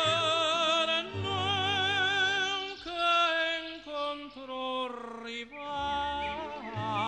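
Music: an operatic voice singing long held notes with wide vibrato over low, sustained accompaniment.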